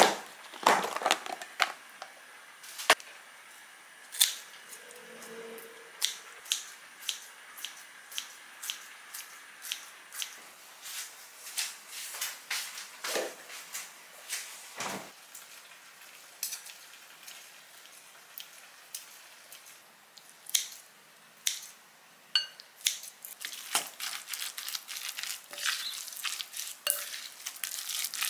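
Kitchen utensils and dishes clicking and knocking irregularly, light clicks with a few louder knocks.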